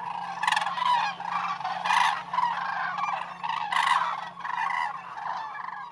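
A flock of common cranes calling: many overlapping honking, trumpeting calls, with louder bursts about half a second, two seconds and nearly four seconds in.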